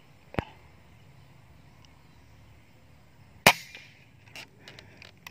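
Air rifle firing a pellet: a sharp crack about half a second in, then a second, louder sharp crack about three and a half seconds in.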